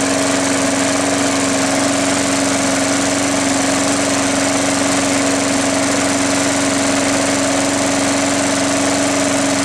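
3.5 HP Briggs & Stratton single-cylinder four-stroke lawnmower engine running at a steady speed, with an unchanging pitch.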